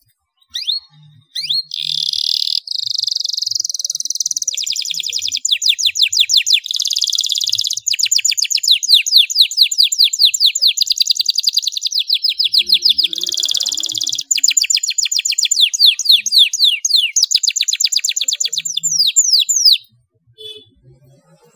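Domestic canary singing one long unbroken song of rolling trills: buzzy stretches alternate with long runs of fast, repeated down-sweeping notes. The song stops shortly before the end.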